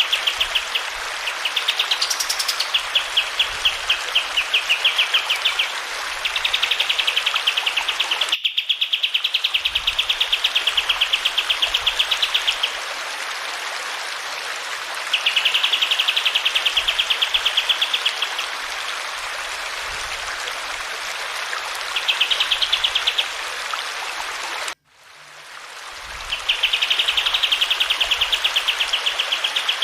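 Kapas tembak songbird singing in bouts of rapid, rolling trills a few seconds long, over the steady rush of running water. The sound cuts out abruptly twice, about a third of the way in and near the end.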